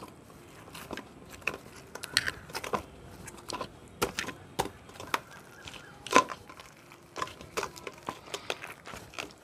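Hands squeezing and kneading wet, fibrous palmyra palm fruit seeds in a steel bowl with a little water: irregular wet squelches and sharp clicks, the loudest about six seconds in.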